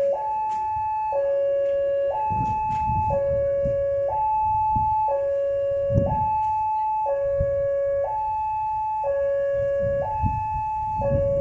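Railway level-crossing warning siren alternating between a high and a low tone, about one second each, sounding to warn that a train is coming. Low rumbles come and go beneath it.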